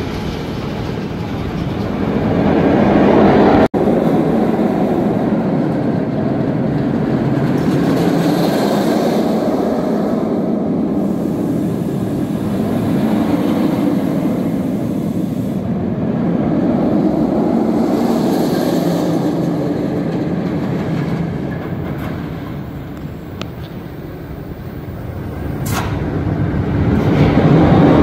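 Medusa, a Bolliger & Mabillard floorless steel roller coaster, with its train rumbling along the track, swelling as it passes close and easing off as it moves away. It cuts off abruptly and resumes about four seconds in.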